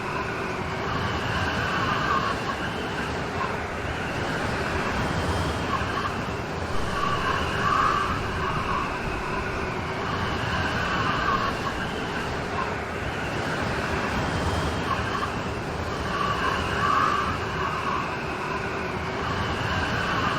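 Steady rain storm, a continuous hiss of rain that swells slightly every few seconds.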